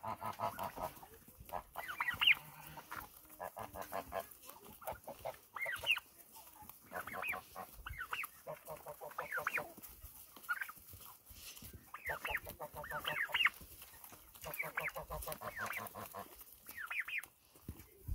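A flock of young turkey poults calling as they feed: clusters of high, falling peeps and chirps every second or two, mixed with quick runs of rapid, lower clucking calls.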